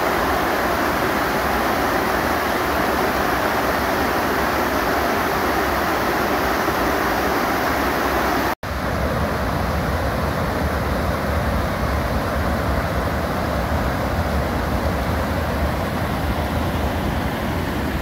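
White water rushing steadily down a small waterfall below a weir and over rocks, heard up close. The sound drops out for an instant about eight and a half seconds in, then carries on.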